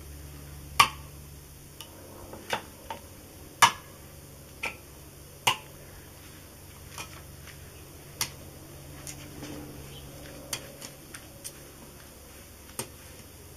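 Irregular sharp clicks and light knocks, roughly one or two a second, from hands handling a whole chicken set upright on a beer can on a wooden cutting board. The loudest knocks come about a second in and again at about three and a half seconds.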